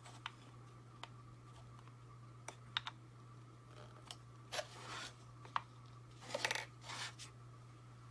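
Small plastic toy accessories being handled and taken out of a plastic packaging tray: scattered light clicks and a few short crinkly rustles, the longest rustles in the second half.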